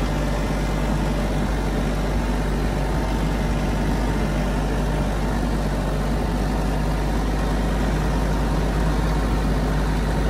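An engine running steadily at a constant speed, with a low, even drone.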